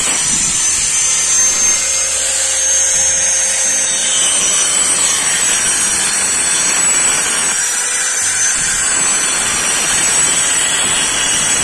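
Handheld angle grinder with a cutting disc cutting into a concrete wall: a continuous high whine over the grinding noise.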